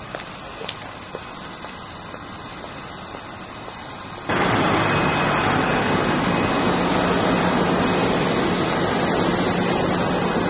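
Steady rushing noise with a few faint clicks, then about four seconds in a sudden jump to a much louder, even hiss.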